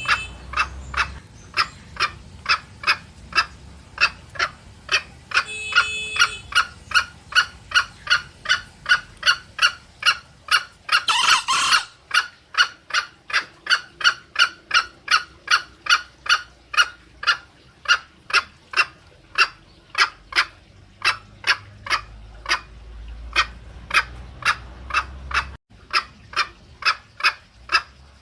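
Green junglefowl calling: a steady run of short clucks, about three a second, with a brief pitched call around six seconds in and a louder harsh call lasting about a second around eleven seconds in.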